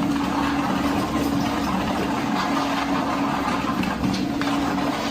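A steady mechanical drone with a constant hum, like a motor or engine running.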